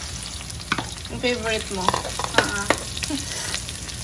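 Garlic sizzling as it sautés in hot oil in a pan, stirred with a utensil that knocks sharply against the pan several times.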